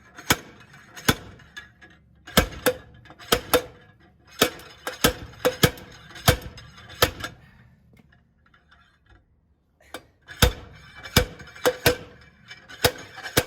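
Hammer blows on metal in the effort to free a hub stuck on the axle. The strikes come in irregular bunches, each with a short metallic ring. They stop for a couple of seconds after about seven and a half seconds, then start again.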